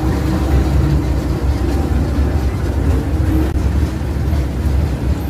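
Hydraulic single-shaft waste shredder running under load, a loud steady low rumble with an irregular grinding texture as its cutters chew through the material.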